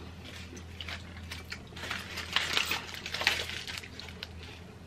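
Aluminium foil crinkling and crackling as a foil-wrapped burger is picked up and handled, loudest in a cluster of crackles through the middle.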